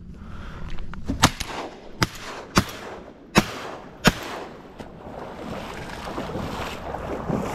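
A volley of five shotgun blasts in quick, irregular succession, each under a second apart, from duck hunters firing at ducks flying overhead.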